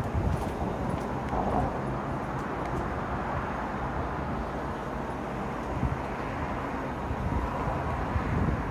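Steady wash of road traffic from a busy multi-lane street below, cars passing in a continuous rumble.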